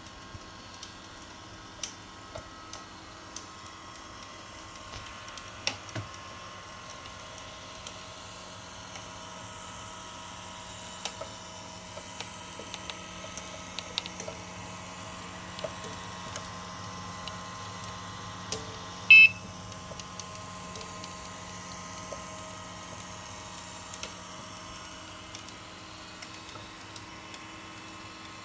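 Homemade PET-bottle filament maker running: its small DC gear motors and 3D-printed gear trains give a steady low hum and whine while pulling the bottle strip through the hot nozzle, with scattered light clicks. About two-thirds of the way through, a single short, sharp high-pitched beep-like tone is the loudest sound.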